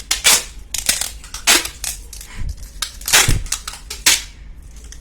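Adhesive tape being pulled off the roll and pressed down, in several short, sharp bursts at uneven intervals.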